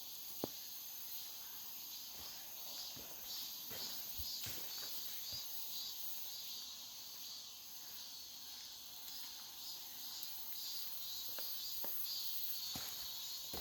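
Steady high-pitched chirring of insects, with scattered footsteps and small crunches on a trail.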